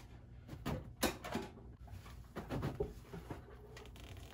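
Speaker wire bundle being fed and pulled under a truck cab's floor carpet: soft rustling and scraping with scattered light clicks, one sharper click about a second in.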